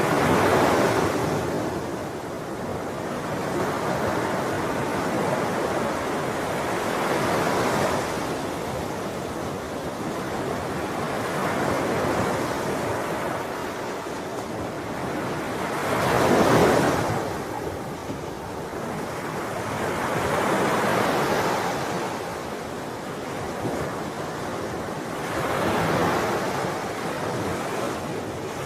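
Sea waves breaking and washing up on the shore, swelling and falling back every few seconds, with the loudest breaker about sixteen seconds in. Wind rumbles on the microphone under the surf.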